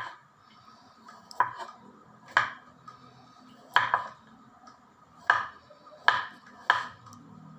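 Slow, irregular knocks of kitchen work during food prep: about seven sharp strikes, each with a short ring.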